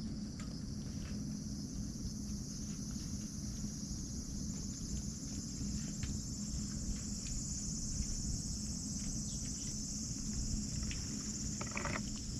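A steady, high-pitched chorus of insects, with a low steady hum underneath and faint scattered clicks as a cat crunches dry kibble.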